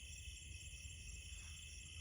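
Night insects chirring in a steady, continuous high-pitched chorus, with a low rumble underneath.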